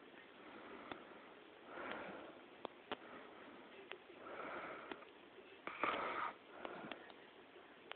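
Sleeping person's heavy breathing: three noisy breaths about two and a half seconds apart, the third loudest, with small clicks in between.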